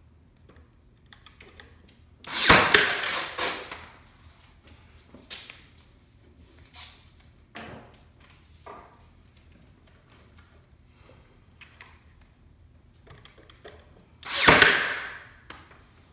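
Ryobi 18-gauge brad nailer firing twice, about twelve seconds apart, each shot a sudden loud burst that dies away within about a second, driving brads into the wooden column board. A few light knocks of handling the wood in between.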